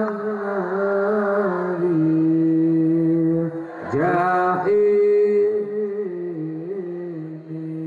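A man chanting Islamic devotional verses (sholawat), holding long notes that step up and down in pitch. There is a short break about three and a half seconds in, and a new phrase begins with a rising slide.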